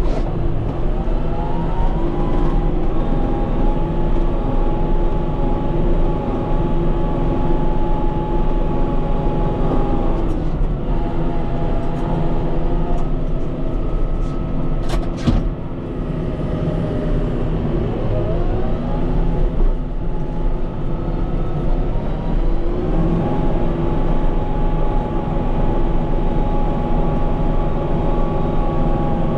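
Kubota M5-91 tractor's diesel engine running hard under load while pushing snow, its pitch rising as it revs up and sagging as it eases off, twice over. A few sharp clicks come in the middle.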